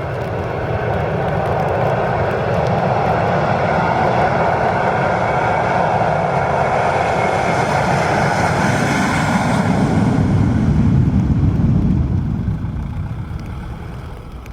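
Airbus A320's jet engines at takeoff thrust: a loud roar that builds, peaks with a deep rumble about three quarters of the way through, then fades as the airliner passes and climbs away.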